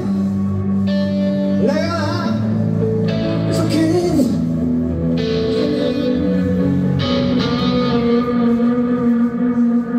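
A live rock band plays, with an electric guitar holding sustained chords. A few notes slide up and down in the first half.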